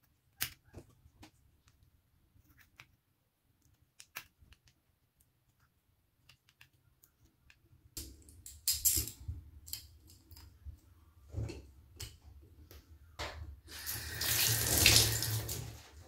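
A few sharp metal clicks of pliers working a shower hose's end fitting. About halfway, water starts running into a bathtub, with handling clicks, and it is loudest near the end.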